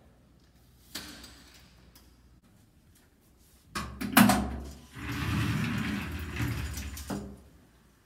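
Home elevator doors closing in a small enclosed space: a light click about a second in, then a hinged door pulled shut with a loud knock about four seconds in. This is followed by about two seconds of scraping rattle as the folding lattice gate slides across.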